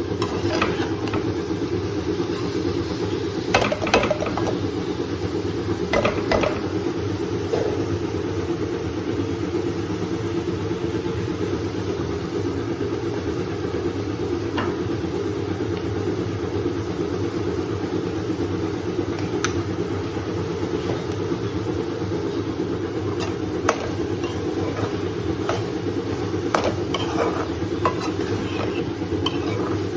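Steady low hum from kitchen cooking, with a few sharp clinks of a utensil against a pan scattered through, most around four and six seconds in and again near the end.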